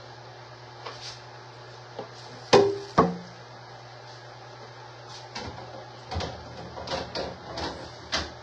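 Household knocks and clatter: two sharp knocks about half a second apart, each with a brief ring, then a run of lighter knocks a few seconds later, over a steady low hum. They sound like doors, drawers or objects being handled in a kitchen.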